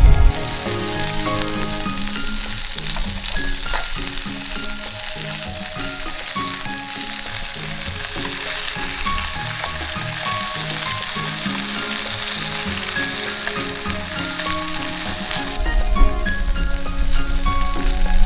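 Garlic shrimp frying and sizzling in oil in a pan, with light background music playing. A louder low rumble comes in near the end.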